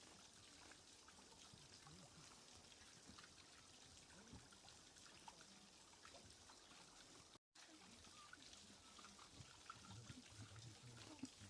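Near silence: a giant panda faintly chewing bamboo shoots, soft scattered crunches and clicks over a steady hiss, with a brief total dropout about seven seconds in.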